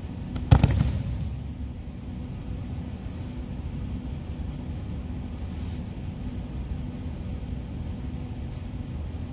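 A judoka thrown onto tatami mats, landing in a breakfall: a single loud slap and thud about half a second in. A steady low hum runs underneath.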